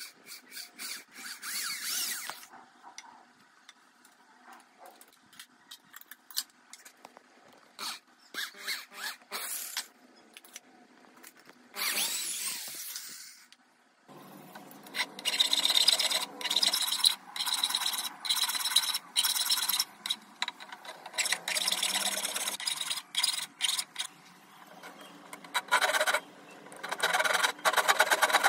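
Woodworking on a teak walking-stick handle: scattered knocks and short scraping sounds, then a hand-held electric drill running briefly a little before halfway. After that comes a long run of quick, rough file strokes on the wood, pausing briefly and starting again near the end.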